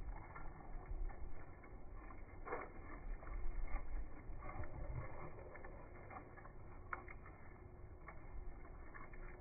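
Wind buffeting the microphone with a low, uneven rumble, stronger in the first half. Scattered light clicks and scrapes sound over it.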